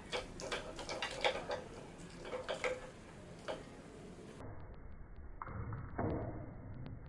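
House sparrows on a feeder table, slowed down: a quick run of sharp clicks and taps for the first four seconds or so, then, at a slower speed still, a dull low rumble.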